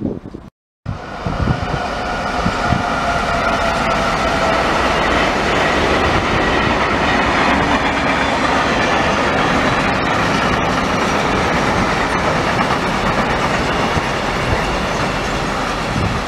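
Freight train of sliding-wall covered wagons rolling past, a loud steady rumble of steel wheels on rail with clickety-clack and thin high wheel tones, some falling slightly. A brief dropout to silence comes just after the start.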